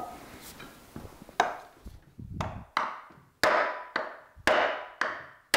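Hammer blows struck through a wooden drift against the seized swivel head of an Elliott 10M metal shaper, driving it off the slide. About six sharp blows, roughly one a second, each with a short metallic ring.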